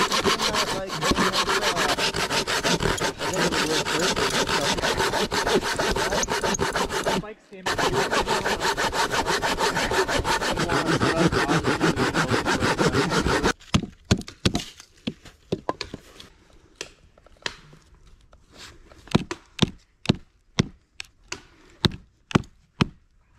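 Folding pruning saw cutting through a dead log in rapid back-and-forth strokes, with a short pause partway through. About halfway, the sawing stops and gives way to sharp wooden knocks about twice a second: a knife being batoned through a piece of wood with a stick.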